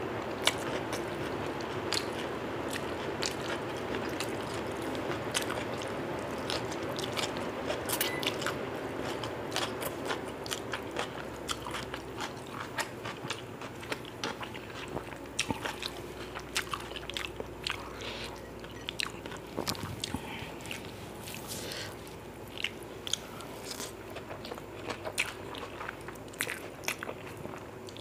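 Close-miked mouth sounds of a person chewing and biting mouthfuls of mutton biryani eaten by hand: wet chewing with frequent small crunches and clicks, irregular and continuous.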